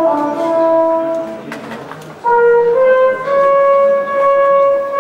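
Recorded big-band brass section music: slow, sustained chords from the brass, fading about a second and a half in, then coming back loud with a new chord just after two seconds that steps upward.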